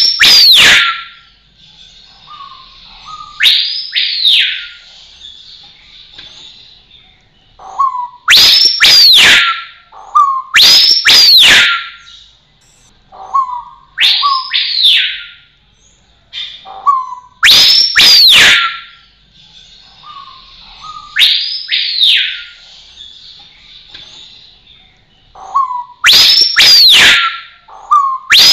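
Rose-collared piha calling: a soft low note, then a loud ringing whistle that sweeps up and falls away, repeated every three to four seconds and often given twice in quick succession. A faint steady high hiss fills the gaps between calls.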